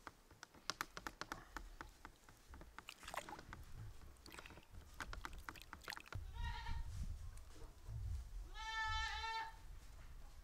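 A farm animal bleating twice: a short call about six seconds in, then a longer, louder, quavering one near the end. Before the calls, a run of sharp crackles and clicks.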